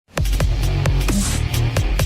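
Electronic dance music with a heavy bass line and sharp drum hits on a steady beat, starting abruptly.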